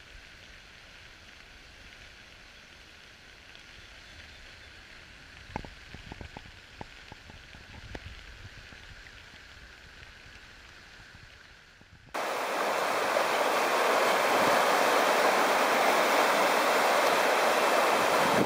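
Rushing floodwater of a swollen creek, a soft steady rush with a few clicks in the middle. About twelve seconds in it cuts abruptly to the much louder, steady rush of a flooded river in spate.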